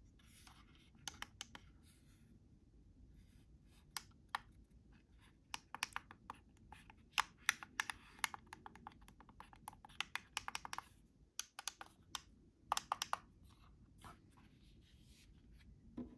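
Small plastic buttons on the back panel of a ViewSonic VFD820 digital photo frame clicking as they are pressed, in irregular runs of quick clicks. Fingers rub and tap on the plastic casing between the runs.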